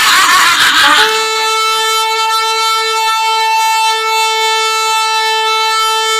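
About a second of loud shouting, then a horn blown in one long, steady, unwavering note that holds to the end.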